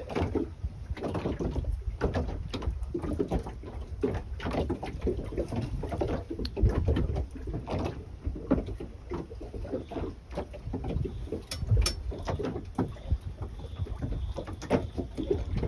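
Wind rumbling on the microphone and water lapping at the hull of a small open boat drifting with its outboard quiet, with scattered knocks and clicks of gear against the boat.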